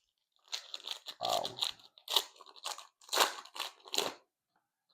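Glossy Panini Prizm trading cards being flicked and slid past one another by hand: a run of about eight short, crisp scraping strokes, irregularly spaced.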